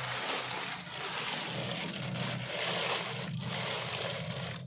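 Plastic bags rustling and water sloshing as bags of catfish fry floating in a tarpaulin pond are handled; an uneven noise that swells and dips every half second or so.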